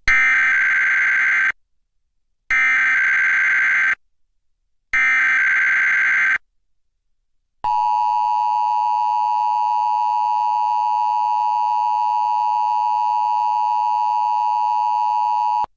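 Emergency Alert System header: three identical bursts of screeching SAME digital data tones, each about a second and a half long with short gaps between, followed by the EAS two-tone attention signal (853 and 960 Hz together), held steady for about eight seconds before it cuts off, opening a Required Weekly Test broadcast.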